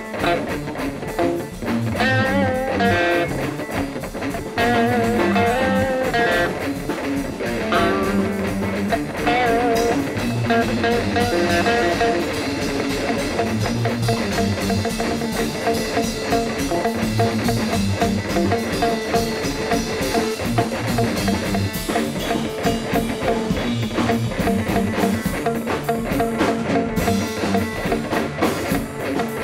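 Guitars and a drum kit jamming: a guitar lead line with wavering, bent notes over rhythm guitar and a steady drum beat.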